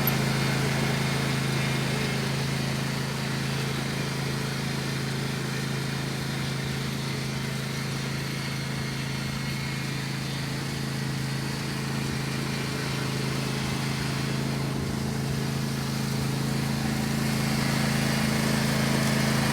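Lawn mower engine running at a steady pitch, a little quieter through the middle and louder again near the end.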